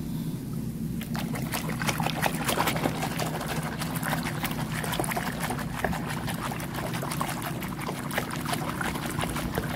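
Soapy water sloshing and splashing in a plastic basin as a hand swishes and rubs a small toy plane under the surface, irregular and continuous, over a low steady hum.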